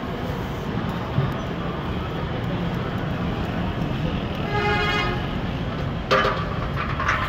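Steady street traffic noise, with a vehicle horn held for just under a second around the middle. A louder burst of noise starts near the end.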